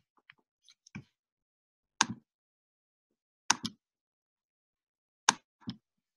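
Computer mouse clicking: a few sharp, short clicks about a second and a half apart, some in quick pairs, with silence between.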